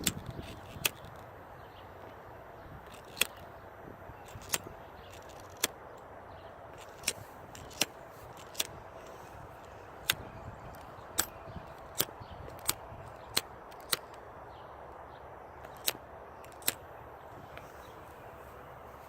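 Dry twigs and sticks snapping, about sixteen short, sharp cracks at irregular intervals over a steady outdoor background hiss.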